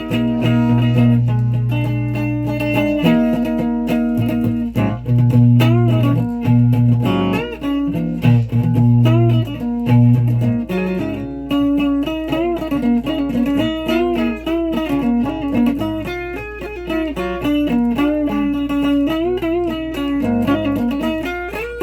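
Guitar being played with a pick: held low notes for the first ten seconds or so, then a busier melodic line with string bends and vibrato. A faint steady low hum runs underneath.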